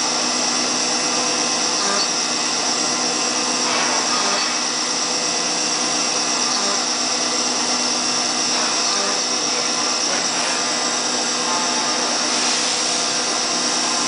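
High-speed CNC machining centre milling aluminium: a steady spindle whine and cutting noise with several constant tones and a strong high hiss.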